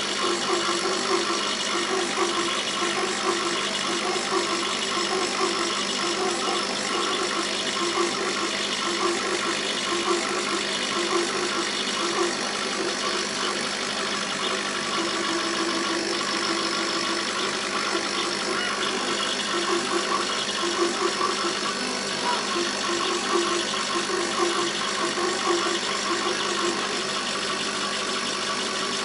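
Laser cutter running as it cuts rows of small holes in a thin wooden sheet: a steady mechanical hum with a whir that keeps wavering as the head moves.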